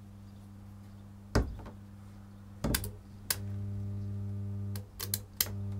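Mains hum from a high-current supply, swelling louder whenever the clamp makes contact and heavy current flows through the flex, with several sharp metallic clicks and snaps as the clamp is pressed onto the plug pins.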